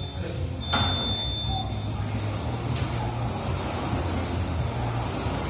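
A gym timer's long start beep about a second in, then a rowing machine's fan flywheel whirring as the rower pulls strokes, the rush swelling with each stroke.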